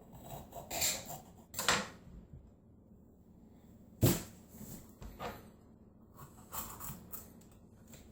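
Knife cutting a green bell pepper on a cutting board: a few short cutting sounds, with one sharper knock of the blade on the board about four seconds in.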